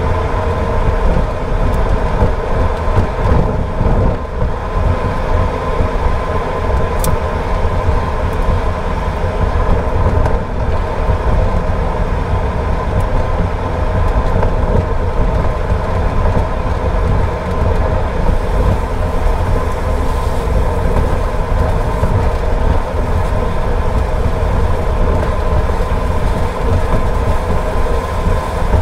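Steady road noise of a car driving on a wet road: a low rumble of engine and tyres with a constant hum.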